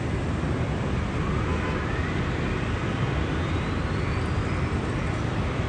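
Nepal Airlines Airbus A330-200 jet engines running with a steady rumbling roar, a faint whine rising steadily in pitch over a few seconds.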